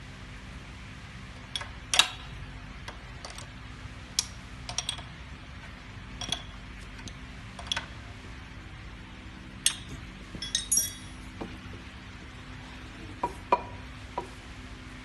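Steel punches and tools clinking and knocking against the metal parts of a TDP-5 single-punch tablet press while the upper punch is being fitted. About a dozen sharp clinks come at irregular intervals over a steady low hum.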